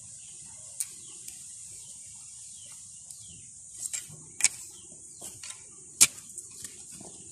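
Hands working garden soil while planting yacon: scattered sharp clicks and knocks, the loudest about six seconds in, over a steady high insect drone.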